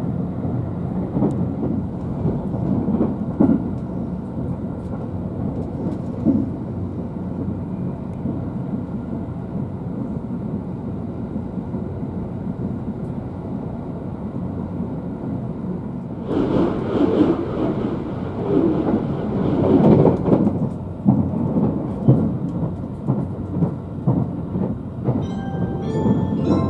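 Cabin running noise of a JR West 271 series limited express train at speed: a steady low rumble of wheels on rail, which grows louder and rougher for several seconds past the middle.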